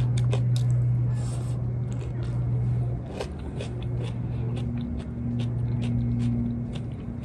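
A steady low mechanical hum, the loudest sound, dipping briefly twice, under a person chewing a mouthful of salad with her mouth closed, with small faint clicks.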